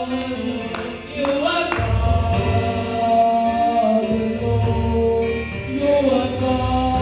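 Gospel worship song: held chords with a bass line that comes in about two seconds in, and a few sung notes over it.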